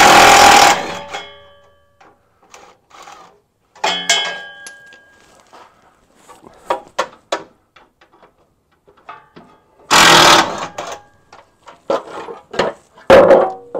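Hand tools working a 13 mm bolt out of an exhaust heat shield under a pickup: scattered sharp metallic clicks and clinks, with two loud rattling bursts, one at the start and one about ten seconds in.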